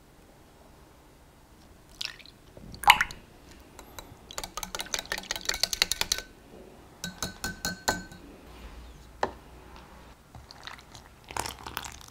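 Small wire whisk stirring a yogurt and vanilla paste mixture in a glass measuring cup: quick runs of light ticking as the wires strike the glass. A sharp tap on the cup comes before the whisking starts, and a few more clinks follow.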